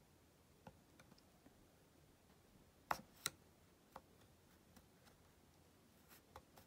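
Near silence broken by scattered faint clicks of a plastic pry tool and a thin metal opening tool working into the glued screen edge of an iPhone 8 Plus. Two sharper clicks come close together about three seconds in, and a lighter one a second later.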